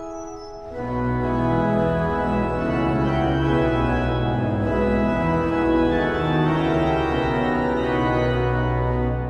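Naber pipe organ playing. About a second in, the full organ enters with deep pedal bass in loud, sustained chords. Near the end it drops back to a quieter, higher registration without the bass.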